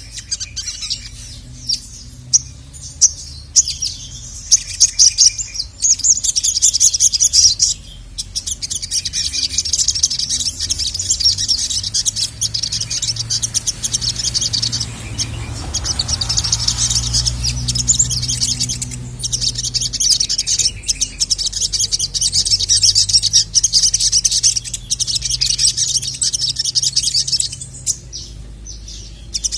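Sogok ontong (sogon) sunbird singing a fast, high chattering song in long runs broken by brief pauses. This is a lure song for calling up males.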